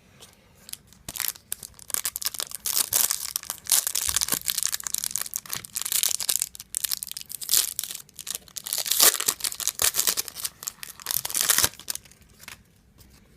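A trading card pack's wrapper being torn open and crumpled by hand: a long run of irregular crinkling and tearing crackles that stops near the end.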